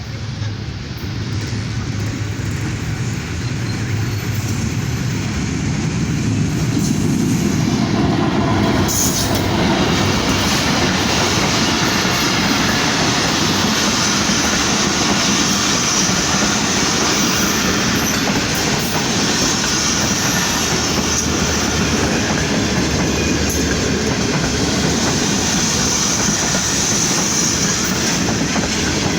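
Passenger train led by a GEU40 diesel-electric locomotive arriving: the locomotive's engine and wheel rumble grow louder over the first several seconds. Then the train rolls past steadily on the rails.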